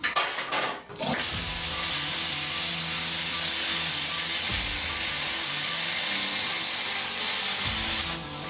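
Plasma cutter with a built-in air compressor cutting 3 mm steel plate. A loud, steady hiss of air and arc from the torch starts about a second in and stops shortly before the end, with a steady machine hum underneath.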